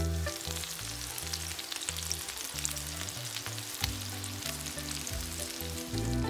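Eggplant omelette rounds frying in hot oil in a pan: a steady sizzle sprinkled with small crackles and pops.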